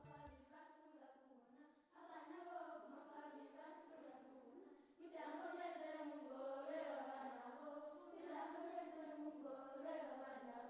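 A group of children singing together in a chant-like song. It breaks off sharply about two seconds in and again about five seconds in.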